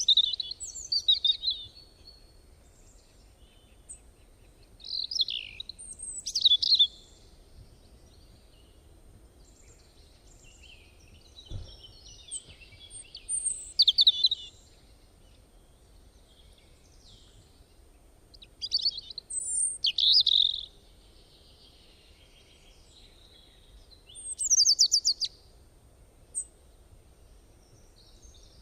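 Bird song: short phrases of high chirps and trills, repeated every few seconds.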